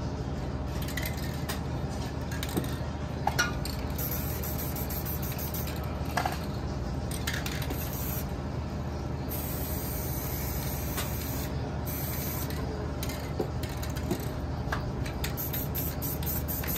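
Aerosol spray-paint cans hissing in several bursts, some short and some about two seconds long, with a few sharp clicks of cans being handled, over a steady low background hum.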